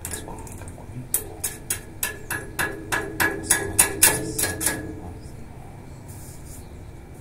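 A hand tool striking the base of a wrought-iron balcony railing: about fourteen quick taps, roughly three a second, each with a short metallic ring. The taps grow louder and then stop about five seconds in.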